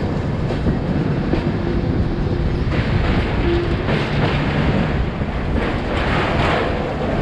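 Passenger express train running along the line, a steady rumble of wheels and coaches with a rushing noise of air.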